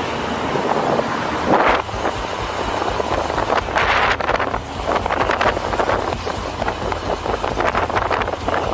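Wind buffeting a moving camera's microphone over a steady low road and traffic rumble, swelling in gusts about a second and a half in, around four seconds in, and again at the end.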